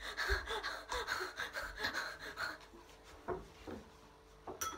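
A woman's breathy gasps and panting in quick succession, dying away about two and a half seconds in, followed by a couple of soft sounds and a sharp click near the end.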